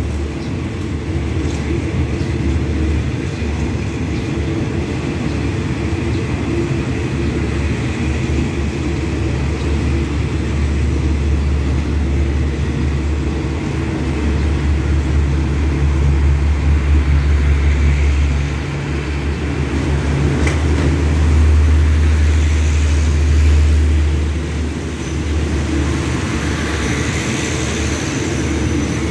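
State Railway of Thailand passenger train rolling slowly along the platform, its coaches passing one after another over a steady low drone.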